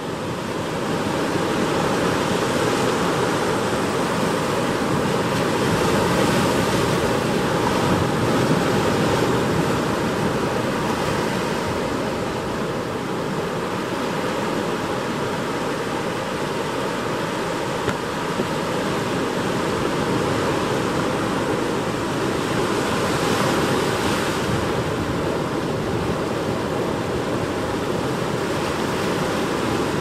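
Ocean surf breaking and washing over rocks: a steady rush of white water that swells now and then as waves come in.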